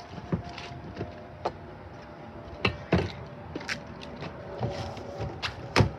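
Scattered knocks and clatter of gear being handled and stowed in a fiberglass boat's storage compartment, with the sharpest knock near the end. A faint steady hum runs underneath.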